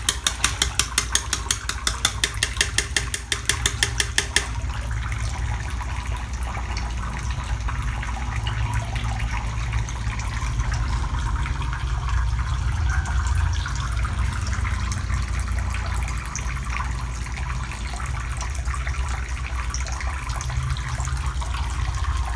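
Rapid, even tapping, about three or four knocks a second, made to call farmed eels to their feed; it stops about four seconds in. Steady running water with a low hum goes on under and after it.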